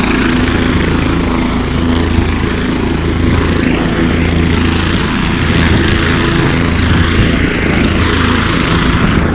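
Helicopter turbine engine and rotor running, a loud steady whine and hum with a constant low throb.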